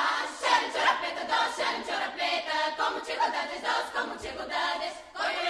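Bulgarian women's folk choir singing in close harmony in quick, short syllables, with a brief break near the end.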